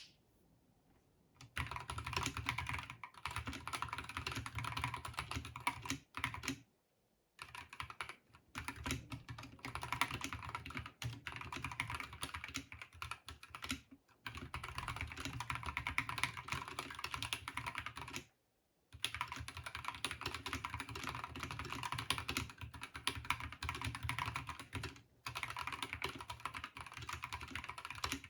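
Glorious GMMK2 Compact mechanical keyboard with its stock switches and keycaps, typed on quickly in dense runs of keystrokes broken by short pauses.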